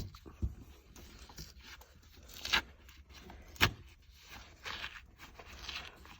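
Handling noise from taking apart a Surface Pro 4 keyboard cover: short scrapes and scratches of a blade and fingers working at its glued plastic layers, with one sharp click a little past halfway.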